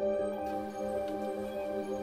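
Background music of soft, sustained ambient synthesizer chords played on a Yamaha Montage.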